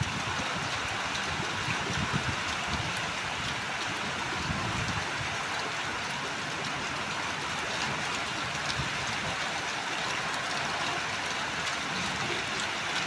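Heavy rain pouring down in a steady hiss, with scattered drop ticks and a few low rumbles.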